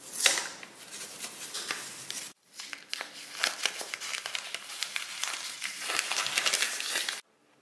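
Crinkling and rustling of thin plastic wrap being handled and peeled off a small Apple USB power adapter by cotton-gloved hands, made up of many small crackles. It breaks off briefly just after two seconds in, then stops abruptly near the end.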